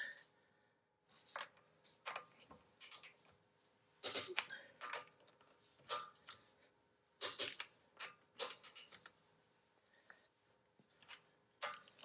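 Click-type torque wrench ratcheting on a wheel's lug nuts: short runs of sharp clicks about every second or so as the nuts are snugged down evenly.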